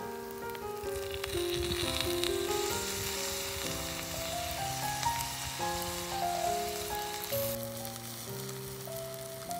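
Meat and onions sizzling on hot stones in a wide pan as pieces are lifted out, with soft background music; the sizzle drops away sharply near the end.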